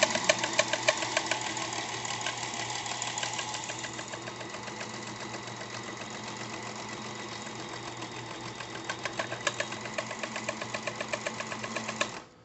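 1946 Singer Featherweight 221 sewing machine running and stitching at a steady speed, with a rapid, even clicking from the stitch mechanism. It has a noise that the owner says she thinks she knows the cause of. It stops abruptly near the end.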